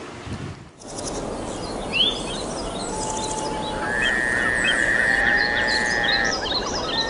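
A chorus of birds chirping and calling over a steady background hiss, starting about a second in, with one long, steady, high whistled note lasting about two seconds near the middle.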